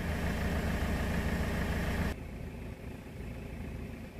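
Recovery truck's engine idling steadily. About two seconds in, the sound drops abruptly and a lower hum carries on.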